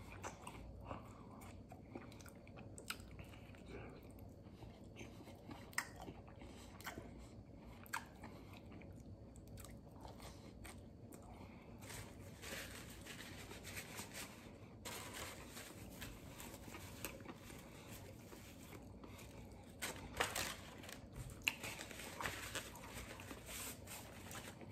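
Faint chewing of a mouthful of crispy chicken sandwich, with soft crunches and small mouth clicks.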